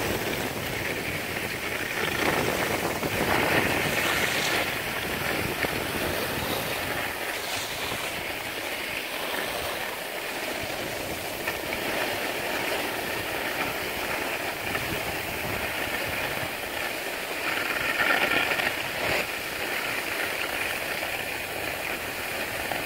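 Steady rushing hiss of skis sliding and scraping over packed snow, mixed with wind across the phone's microphone as the filmer skis downhill. It swells louder a couple of times.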